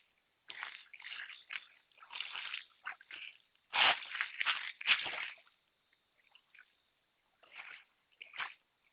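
Water splashing and sloshing in a run of irregular bursts, loudest about four to five seconds in, followed by a few scattered splashes.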